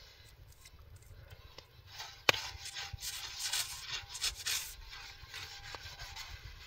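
A sharp click or knock, then a couple of seconds of scraping and rubbing that fades out.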